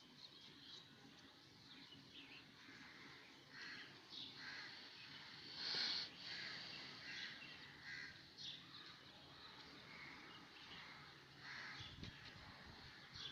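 Faint bird calls, short and scattered, with one louder call about six seconds in.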